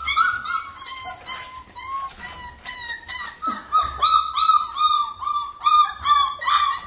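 Puppies whining and yelping: short, high cries that come in a quick run, about three a second, from about three seconds in.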